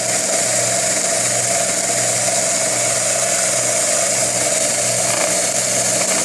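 Homemade belt sander, driven by an old bandsaw's electric motor, running steadily: a constant motor hum under the even whir of the sanding belt.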